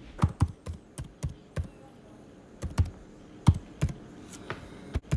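A series of irregular sharp clicks and light taps, about a dozen, some with a dull low thump beneath them.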